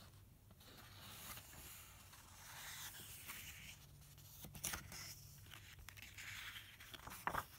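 Faint rustling and sliding of paper as picture-book pages are turned by hand, with louder page flips about halfway and near the end.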